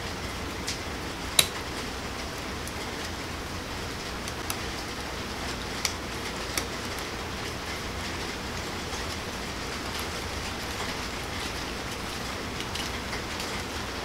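A hand screwdriver driving small screws into a servo mounting piece: a few scattered sharp clicks and scrapes, the loudest about a second and a half in, over a steady background hiss.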